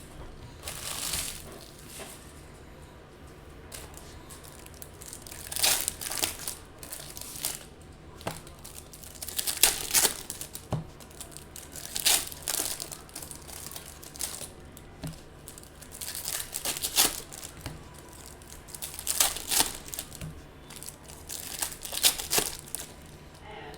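2019 Bowman Chrome trading card pack wrappers being torn open and crinkled, in irregular bursts a few seconds apart.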